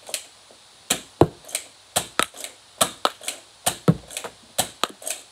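A Nerf Negotiator blaster being fired rapidly at foam darts' worth of shots: an irregular run of sharp clacks and pops, about three or four a second, some with a dull thud.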